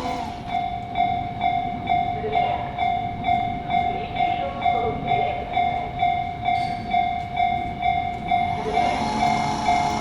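Japanese level-crossing warning bell ringing: an electronic clanging tone struck about twice a second, warning of an approaching train. Near the end a lower steady tone and rising rumble join it as a train draws near.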